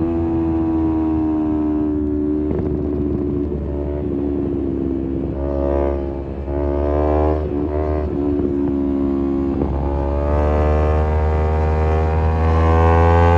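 Kawasaki Z250 parallel-twin engine through an aftermarket SeaPro muffler, ridden through corners: the revs fall off, rise and drop again several times with the throttle, then climb steadily over the last few seconds as the bike accelerates.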